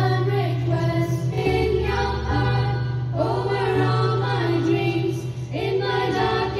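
A group of school students singing a prayer song together into microphones, in long held notes, with a steady low hum beneath the voices.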